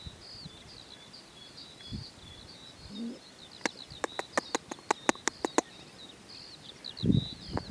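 Small birds chirping continuously with short high twittering notes, and a quick run of about ten sharp clicks in the middle.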